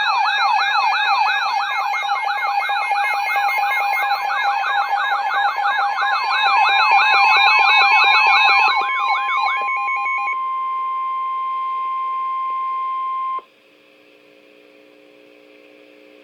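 Emergency alert tones on NOAA Weather Radio: a loud, rapidly warbling siren-like tone, about four rises a second, over steadier beeping tones, giving way about nine and a half seconds in to a single steady tone of about 1 kHz, the weather radio's warning alarm tone. It cuts off suddenly about thirteen seconds in, leaving a faint radio hum.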